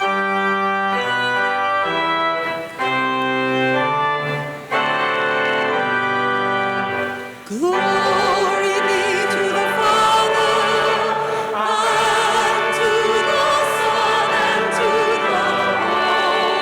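Organ playing sustained chords as an introduction. About halfway through, singing voices come in over the organ and carry on with it.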